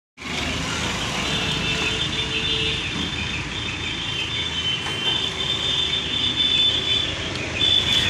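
Diesel engine of heavy machinery running steadily, with a thin high whine above the engine sound.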